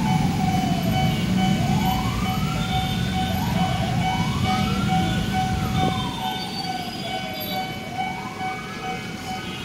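Railway level-crossing warning siren wailing, its pitch slowly rising and falling about every three seconds over a steady tone, a warning that a train is approaching. Low traffic rumble underneath fades about six seconds in.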